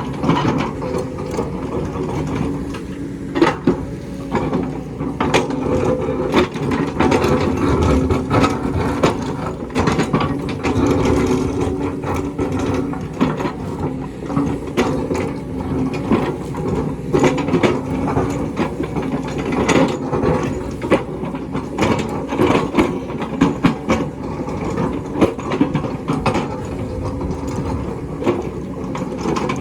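Hydraulic excavator working rock: its diesel engine runs steadily under load while the bucket and tracks clank and scrape, with many sharp knocks of metal against stone.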